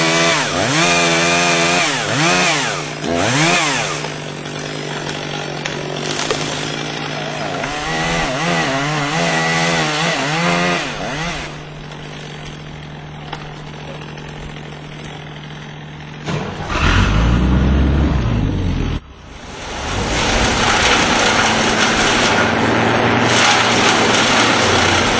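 Chainsaw revving up and falling back several times, in two spells, over a steady engine hum. Later the sound changes abruptly twice, ending in a steady, even machine noise.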